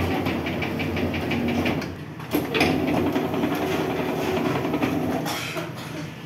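Electric dough sheeter running with sheets of puff pastry dough: a steady motor hum under a fast rattling clatter of the belt and rollers. The run eases off just before two seconds in and starts up again sharply about half a second later, as the dough is passed back through the rollers.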